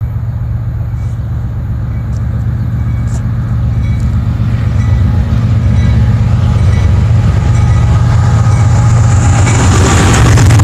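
Diesel locomotives of a CSX freight train, led by a GE ES40DC, rumbling deep and steady as they approach and grow steadily louder. A rushing noise from the wheels on the rails swells as the lead unit comes alongside near the end.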